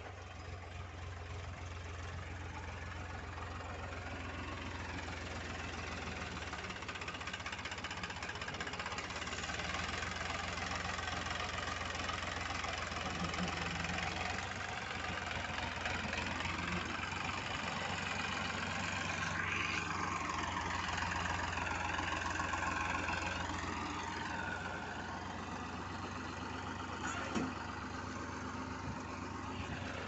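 Farm tractor's diesel engine running steadily under load as it pulls a seed drill through tilled soil, growing louder over the first several seconds as it comes closer.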